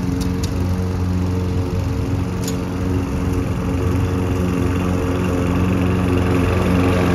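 Gasoline walk-behind lawn mower engine running steadily while cutting grass. It grows slowly louder as the mower comes closer.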